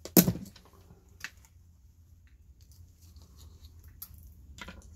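Plastic parts of a pod coffee maker cracking as they are wrenched apart with pliers: one sharp crack with a short stutter just after the start, then a few light clicks.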